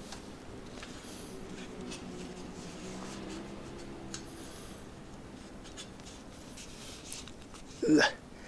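Faint scratching and rubbing of a tubular tyre being stretched and worked onto a rim coated with rim cement. A short, louder sound comes near the end.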